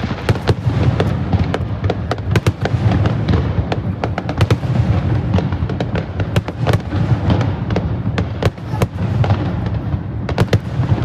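Fireworks display: a rapid, unbroken run of sharp bangs and crackles over a low, steady rumble.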